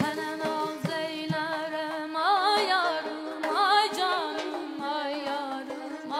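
Azerbaijani mugham ensemble playing live: a wavering, heavily ornamented melody over a steady held drone, with drum strokes scattered through it. The ornaments swell twice, about two and three and a half seconds in.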